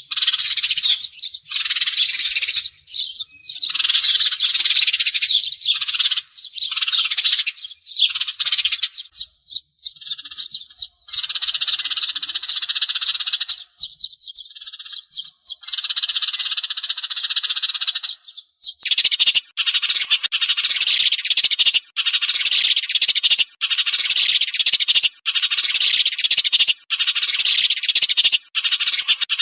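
A flock of sparrows chirping and chattering densely: a sparrow-call lure recording of the kind played to draw sparrows to glue traps. About two-thirds of the way through, the chatter settles into even bursts roughly every second and a half, separated by short gaps.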